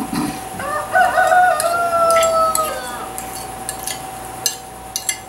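A rooster crowing once: one long call starting about a second in and lasting about two seconds, falling slightly at the end. It sounds over light clinks and scrapes of a utensil against a ceramic plate as guacamole is scraped into a bowl.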